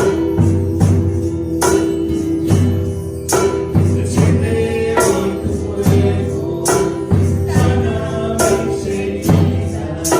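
Christian praise song (alabanza) playing, with a steady beat, tambourine strokes and sustained bass and keyboard tones.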